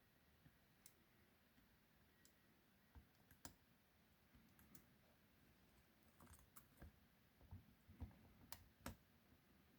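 Faint, scattered metallic clicks and ticks of lock picks working in the keyway of a 40mm padlock, a few at first and coming more often in the second half.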